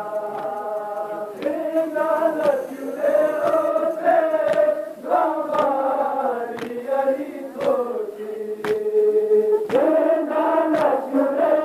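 A group of men chanting a mourning lament (noha) in unison, holding long notes, with sharp slaps roughly once a second in time with the chant: the chest-beating of matam.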